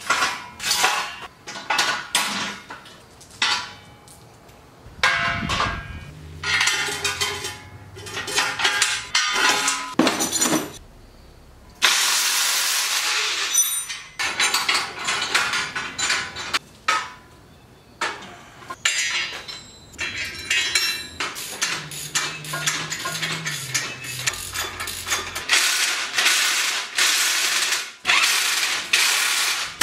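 Steel trailer-frame rails, bolts and hand tools clanking and clinking as the frame is bolted together, with a corded power drill running for about two seconds near the middle.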